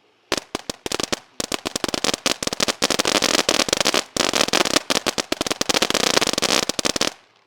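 Firework fountain (a UFO novelty fountain) going off in fast, crackling pops. A few separate pops come first, then a dense rapid run that stops abruptly about seven seconds in.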